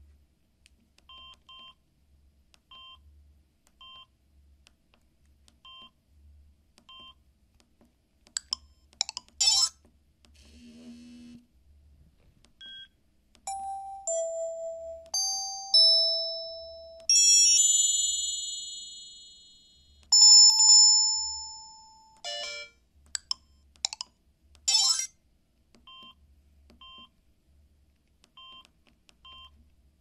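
Samsung SGH-C260 flip phone giving short key beeps as its menus are scrolled. In the middle it plays previews of its SMS alert tones: a quick run of short notes, then two bright chimes that ring out and fade. Two short noisy bursts also sound, one early and one late.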